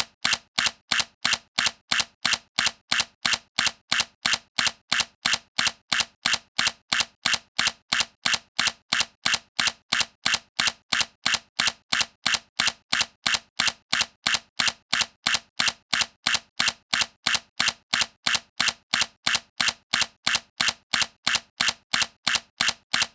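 Sony A7C mirrorless camera's shutter firing over and over, a sharp click about two to three times a second at an even pace.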